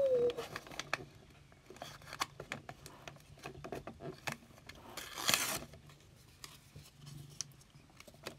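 Small handling clicks and taps, with a short rustle of paper about five seconds in.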